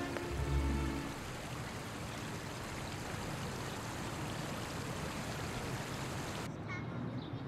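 Music ends on a low held note about a second in, leaving a steady, even rushing noise, like running water. Near the end the high hiss drops away and a few faint bird-like chirps come in.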